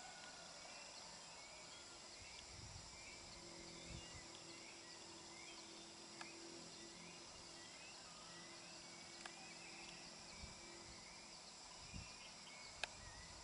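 Faint night ambience of insects: a steady high drone with many short repeated chirping calls, and a few faint isolated clicks.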